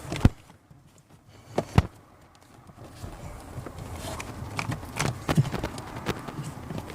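Plastic car heater-box parts being handled and worked at by hand: two sharp knocks in the first two seconds, then a run of smaller clicks and rattles.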